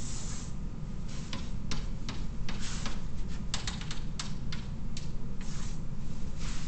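Pen tapping dots onto a drawing surface and drawing short strokes by hand: an irregular run of sharp taps with a few brief scratchy strokes, over a steady low room hum.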